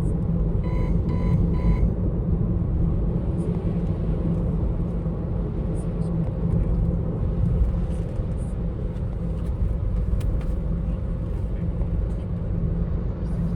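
Steady road and tyre rumble inside a moving car's cabin, with three short electronic chime beeps from the dashboard about a second in.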